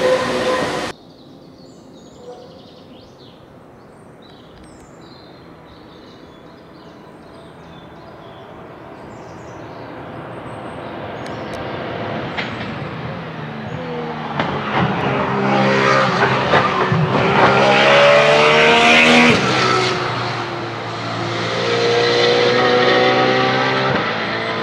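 Porsche 992 GT3 R race car's naturally aspirated flat-six running through a silenced exhaust. It grows louder as the car approaches, then passes under hard acceleration with the revs climbing and breaking at each upshift. It fades slightly, then climbs again through the gears as the car pulls away. Faint bird chirps can be heard before the car arrives.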